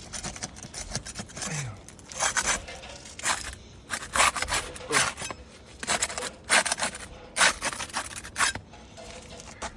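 Roof shingles being scraped and rubbed as the damaged, loose shingle is worked free: about eight short, irregular scraping strokes.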